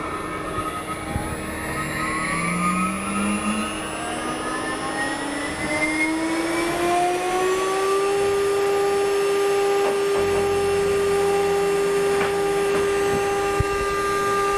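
6040 CNC router spindle spinning up to its set maximum of 24,000 RPM: a whine that rises steadily in pitch for about eight seconds, then holds a steady high whine.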